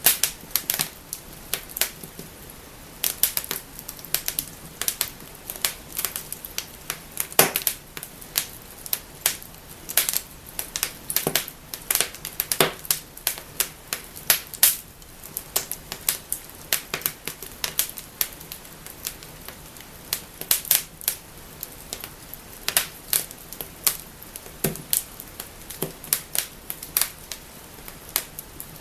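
Wood fire burning in a fireplace, crackling and snapping: dense irregular sharp pops, a few louder than the rest, over a faint steady hiss of the flames.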